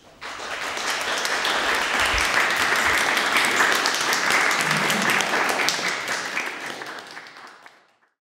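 Applause from a small seated audience, many hands clapping at once. It builds within the first second and fades out near the end.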